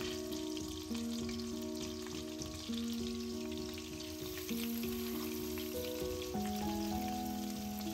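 Food sizzling and crackling as it fries in hot fat in a pan, with fine spattering. Soft background music with slow, held notes plays along.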